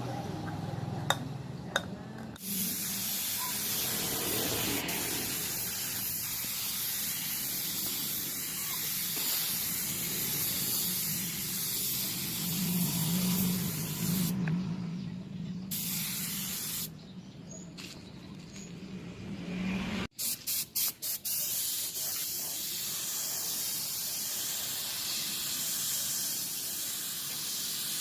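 Pressurised spray hissing in long steady runs, breaking off briefly about halfway through and again for a few seconds, then a run of quick clicks before the spraying resumes.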